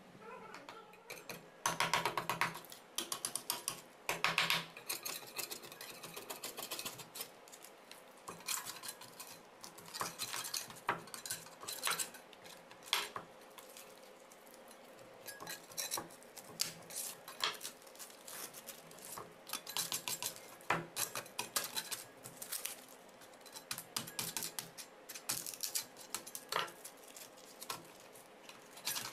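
Thin sheet-metal mould band rattling and scraping against concrete as it is peeled off a cast concrete weight plate, in irregular clattering bursts.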